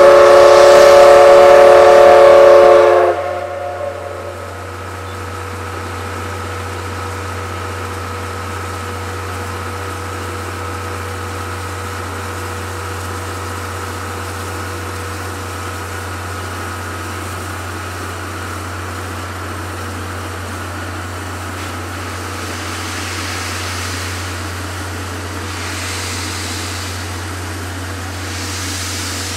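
A JNR C57 steam locomotive's whistle blows one long, loud blast of several tones together and cuts off about three seconds in. A faint steady tone and a low hum follow. Near the end come slow, soft exhaust chuffs a few seconds apart as the locomotive starts to pull away.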